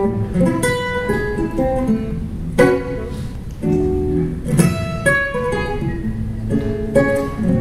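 Solo acoustic guitar playing an instrumental introduction: picked notes ringing over bass notes, with a few sharper strummed chords, about three seconds and five seconds in.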